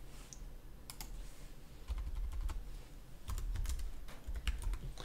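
Computer keyboard being typed on: a handful of separate keystroke clicks, spread out as a short word is entered, with dull low thumps under some of them.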